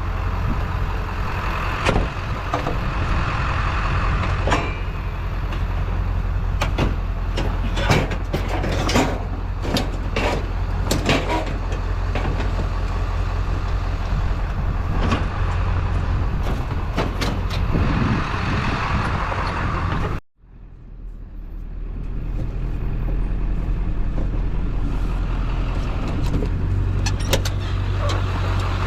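A vehicle running with a steady low engine hum and many sharp knocks and rattles. About twenty seconds in the sound cuts out abruptly, then returns as a steadier hum with fewer knocks.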